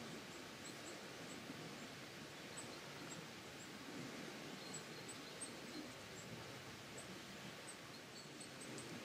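Faint outdoor ambience: a steady hiss with scattered, very short, high-pitched chirps.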